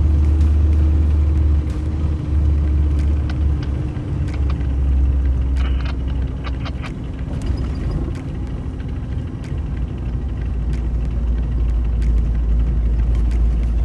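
Off-road vehicle driving, with a steady low engine and road rumble. Under it a single drone sinks slowly in pitch, with a few faint clicks and knocks.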